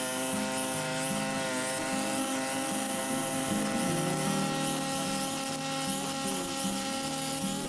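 Small two-stroke engine of a brush cutter running steadily at high speed while mowing grass.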